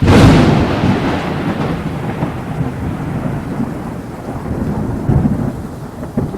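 A sudden loud crack followed by a long, low rolling rumble over a steady hiss, slowly fading, with a couple of swells near the end.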